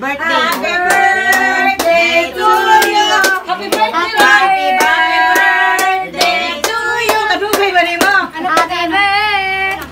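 Voices singing a song together, with held notes and vibrato, over a steady beat of hand claps.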